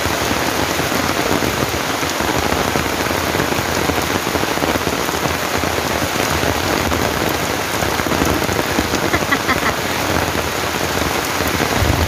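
Heavy rain falling steadily on forest leaves and a wet paved path: a dense, even hiss of a tropical downpour.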